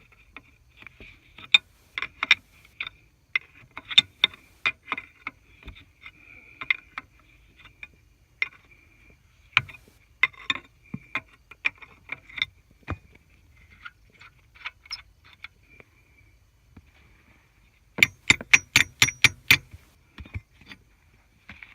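Irregular sharp metallic clicks and clinks of hand tools working on the bolted links of a forestry forwarder's steel tracks. Near the end comes a quick run of about seven louder metal strikes.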